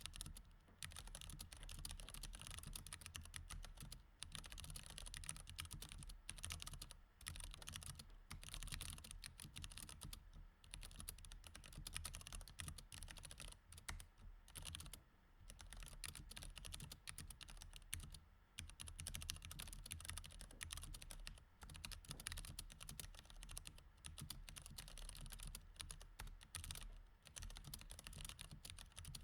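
Continuous typing on a mechanical keyboard with Cherry MX Red switches: quiet, rapid key clicks in steady runs, broken by short pauses every few seconds.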